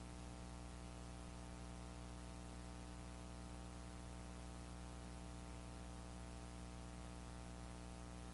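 Faint steady electrical hum with its overtones and a background hiss, unchanging throughout; no handling or screwdriver sounds are heard.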